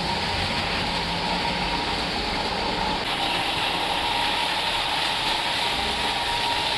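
Model train running along its track: a steady whirring noise with a faint constant whine.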